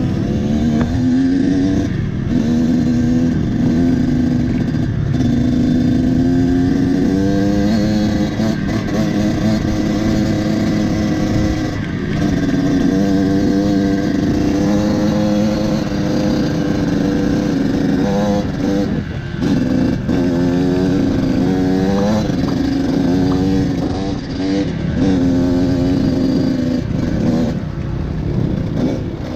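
Dirt bike engine ridden on a rocky trail, its revs climbing and dropping again and again with frequent throttle changes and short breaks, over a steady rush of noise.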